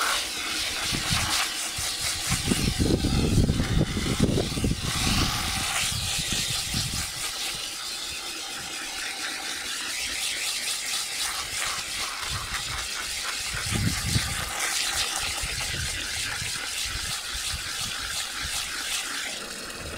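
Water from a garden-hose spray nozzle pouring into a plastic bucket of wheat grain, a steady splashing hiss as the grain is covered with clean water to soak. The flow sounds heavier from about two to seven seconds in and again briefly near fourteen seconds.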